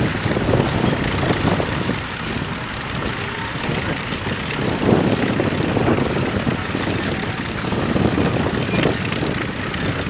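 Fordson Major County crawler tractor's engine running steadily under load as it pulls a plough through the soil.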